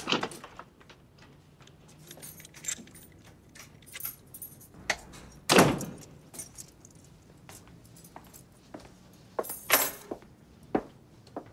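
A bunch of keys jangles and clinks as a front door is opened and pushed shut. The door shuts with one loud thud about halfway through, and the keys jingle again near the end, with light footsteps and knocks in between.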